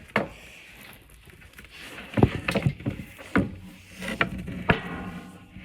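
Taped hockey stick being handled on a table: several sharp, hollow knocks and taps with faint rustling in between.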